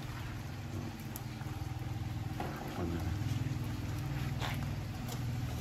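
A low, steady engine rumble that grows a little louder about three seconds in, with a few faint clicks.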